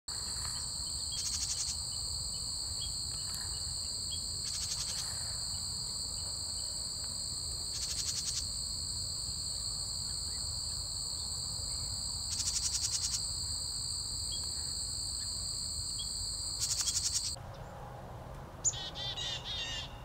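Steady high-pitched insect chorus, with a brief pulsing buzz every three to four seconds and a few faint bird chip notes. It cuts off about 17 seconds in, and a quick series of bird calls follows near the end.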